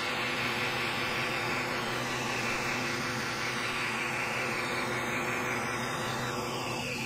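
xTool S1 20W enclosed laser engraver running while it engraves text into a wooden plaque: a steady whir with an underlying hum. The higher hiss eases a little near the end.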